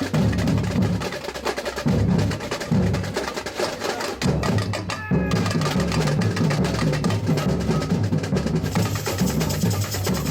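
Samba percussion playing a driving samba rhythm: deep bass drums under fast snare and wood-block strokes, with a brief break in the drumming about five seconds in.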